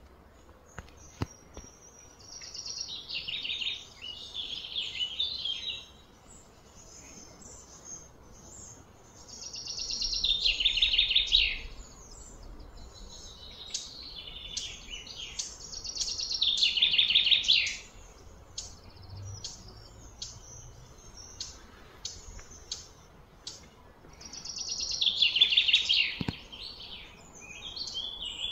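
A songbird singing: four loud phrases a few seconds apart, each a quick run of notes falling in pitch, with short chirps in between.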